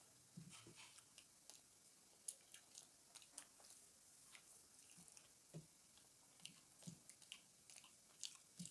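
Faint chewing and biting of soft pizza, with scattered small mouth clicks at irregular times.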